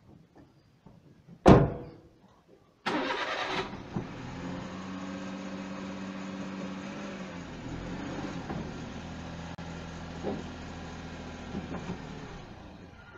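A car door shuts with a loud thump, then about three seconds in the Suzuki Every DA62V van's three-cylinder engine is cranked, catches and runs steadily. Its revs rise a little in the middle as the van drives up onto car ramps.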